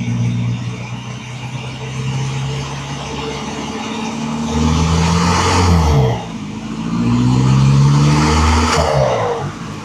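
Volkswagen-group 1.9 TDI four-cylinder turbodiesel engine revving up twice, about halfway through and again a second later, each rise carrying a turbo whoosh, then settling back near the end.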